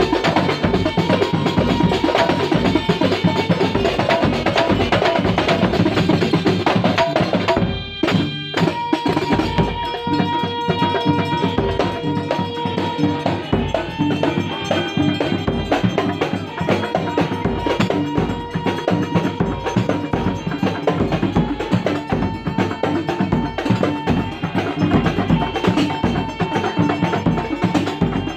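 Kuntulan music played by a live ensemble: drums and percussion in a busy, driving rhythm with sustained melodic notes above, breaking off briefly about eight seconds in before picking up again.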